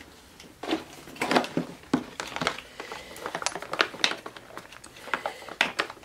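Irregular light clicks and knocks as an aftermarket handlebar is worked into place on a Farmertec MS660 chainsaw.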